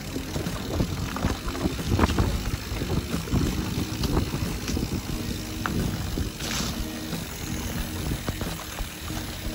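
Mountain bike rolling fast down a dirt forest trail: tyre noise with irregular knocks and rattles from the bike over bumps and roots, and a brief hiss about two-thirds of the way through.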